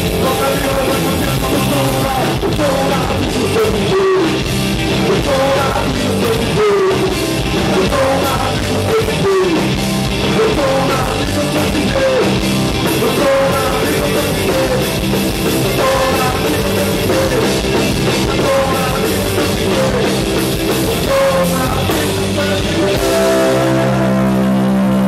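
A live punk rock band playing loud: electric guitars and a drum kit, with shouted vocals. Near the end the drumming stops and a guitar chord is left ringing.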